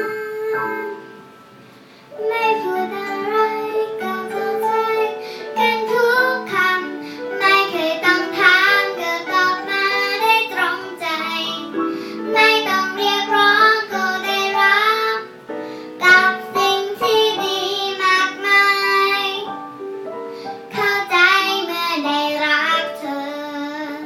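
A child singing a slow Thai pop song over an instrumental backing, with a brief pause in the voice about a second in.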